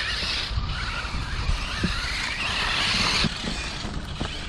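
1/10-scale radio-controlled short course trucks running on a dirt track: a steady rushing noise with a few light knocks, falling off about three seconds in.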